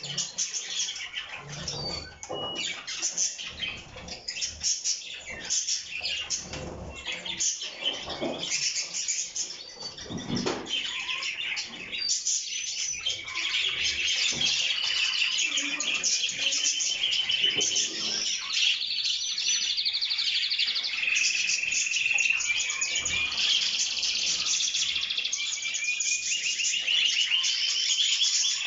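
Caged canaries singing: broken, scratchy chatter at first, then from about twelve seconds in a louder continuous song of rapid rolling trills and held whistled notes.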